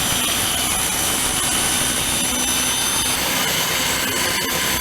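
Skil 10-inch table saw running at full speed: a steady motor whine over a loud, even rushing noise.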